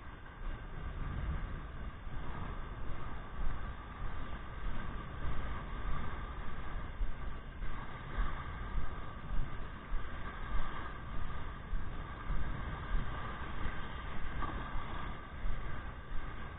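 Wind buffeting a small action-camera microphone, a low rumble that rises and falls in short surges.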